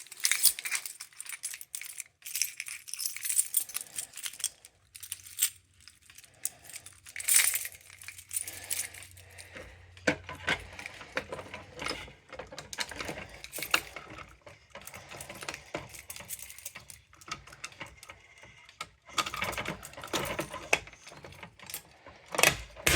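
A bunch of metal keys jangling and clinking in irregular clusters as they are sorted through by hand to find one key.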